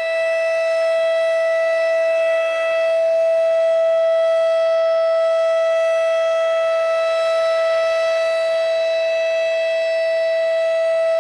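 RSH-10 Thunderbeam outdoor warning siren sounding during a test, holding one steady high tone at full speed.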